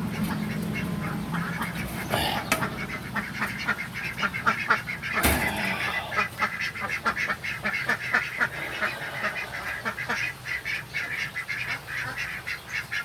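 A flock of ducks quacking and chattering, many short calls overlapping, with a sharp knock about five seconds in.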